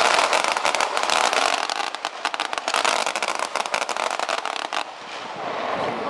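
Feu de joie: massed SAR21 rifles firing blanks in a running fire down the ranks, a dense crackle of rapid reports that cuts off suddenly about five seconds in.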